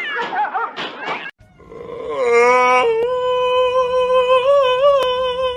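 A pet animal's long howl held at a nearly steady pitch for about four seconds, wavering a little near the end. It follows a short stretch of wavering calls that cuts off abruptly after about a second.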